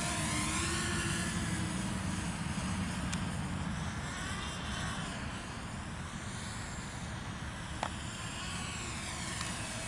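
Walkera F210 racing quadcopter's motors and propellers whining in flight, the pitch gliding up and down with the throttle and fading in the middle as it flies farther off. A steady low rumble lies underneath, and there is a single click near the end.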